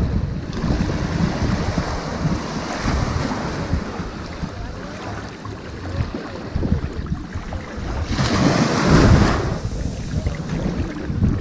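Ocean waves washing onto a sandy beach, a continuous surf wash with a louder wave surging about eight seconds in. Wind buffets the microphone, adding a low rumble.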